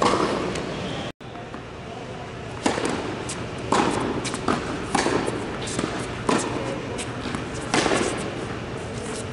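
Tennis rally in an indoor tennis hall: sharp racket hits on the ball and ball bounces on the hard court, about one or two a second, each echoing in the large hall.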